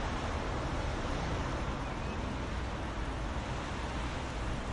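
Soft, steady summer rain: an even hiss of falling rain at a constant level.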